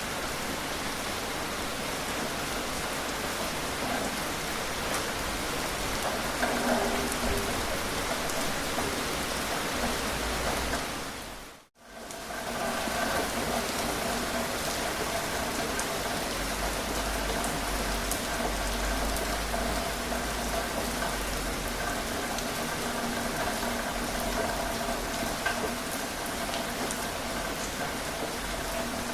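Steady rain falling, with scattered sharp drop ticks. About twelve seconds in it fades out briefly and comes back, and after that faint steady tones sit under the rain.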